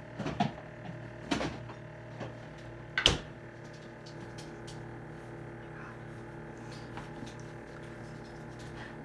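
Kitchen clatter while a salad is being made: a few separate knocks of objects being handled and set down, the loudest about three seconds in, then faint light clicks, over a steady hum.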